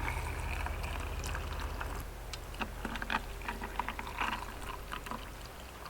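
A drink being poured into a cup, the pouring tone rising slowly in pitch as the cup fills, followed by several light clicks and clinks.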